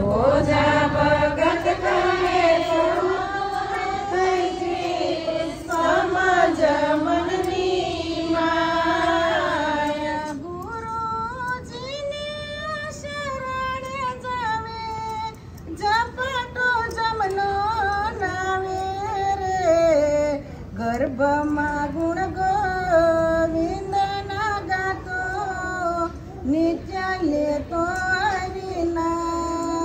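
A woman singing a devotional song (bhajan) in long, held, wavering melodic phrases, breaking between phrases about ten and fifteen seconds in.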